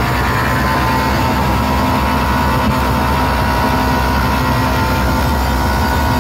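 Very loud, distorted, bass-heavy sound from a large stacked DJ speaker system, a steady drone with a held higher tone and no clear beat.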